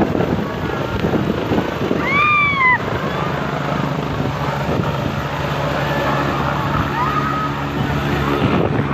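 Helicopter rotors and turbine engine running close by, a steady loud noise with the rotor wash blowing across the microphone. About two seconds in, a short high call rises and falls over it.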